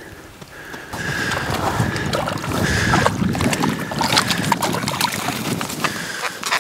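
Boots crunching and scuffing through snow on the ice, a dense rough rustle of many small crunches that starts about a second in.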